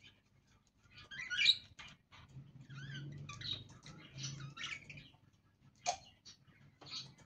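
Budgerigars chirping and chattering in short, high-pitched calls with quick pitch wiggles, loudest about a second and a half in, with a sharp click near six seconds.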